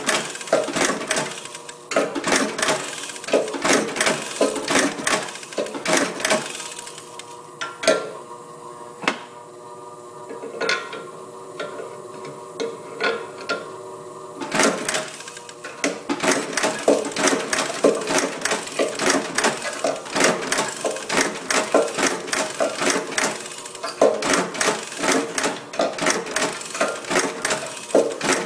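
National riveting machine clacking in quick repeated strokes as rivets are set through a brake shoe's lining. In the middle the strokes stop for several seconds and only the machine's steady hum is left.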